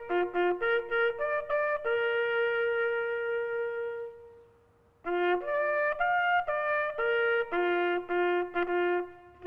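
A solo bugle call on a brass horn: a run of short notes, then one long held note that fades away, a brief pause, and another run of quick notes.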